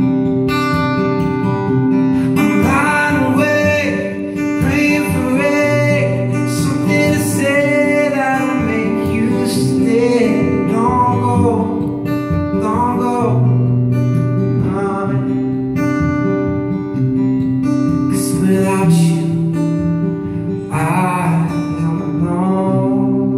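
Acoustic guitar strummed steadily while a man sings over it, a live solo song.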